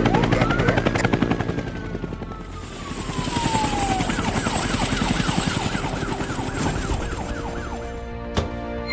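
Cartoon soundtrack of music and sound effects: a fast, even chopping rhythm, with a whistle that slides up and then slowly falls. After it comes a warbling tone that wobbles about four to five times a second, and a few sharp clicks near the end.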